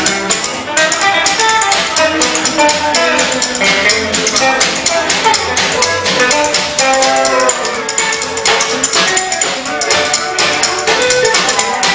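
Live small band playing a song with upright bass, drum kit, acoustic rhythm guitar and electric guitar, with a steady drum beat throughout.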